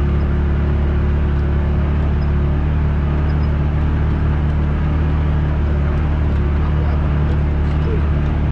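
Off-road vehicle engine running at a steady cruising speed: an even low drone with no revving, over a constant rushing noise.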